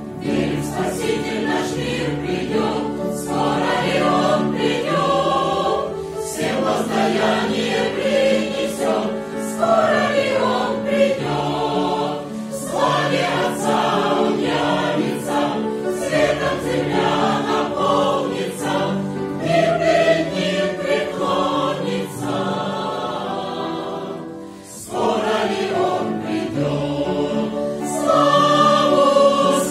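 Mixed church choir of women's and men's voices singing a hymn in parts, in long phrases. Near the end there is a short break before a louder phrase.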